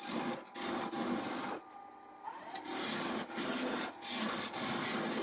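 Skew chisel cutting a spinning wooden sleeve on a wood lathe to round it over: a rough hiss of the cut in several passes, with short breaks and a longer pause about two seconds in.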